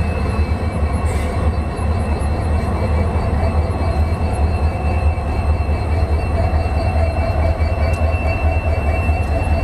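Indian Railways WDP4D diesel locomotive's 16-cylinder EMD 710 two-stroke engine running with a steady deep hum, a couple of faint steady whining tones above it.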